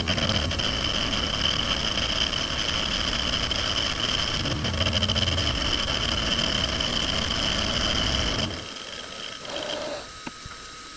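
Precision Matthews PM-25MV benchtop milling machine running and cutting, a steady mechanical noise with a high whine. About eight and a half seconds in, the noise drops sharply, leaving a much quieter hum.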